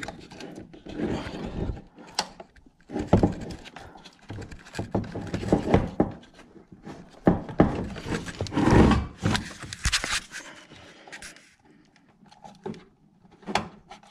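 Hands working inside an open car door: irregular knocks, clicks and scraping of plastic and metal parts being handled, busiest in the middle and quieter near the end.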